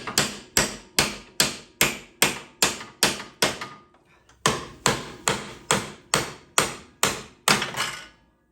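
Hammer blows on the steel yoke of a prop shaft U-joint, knocking out its retaining clips. The blows come steadily at about two and a half a second, each with a short metallic ring. They pause briefly about halfway through, then resume and stop near the end.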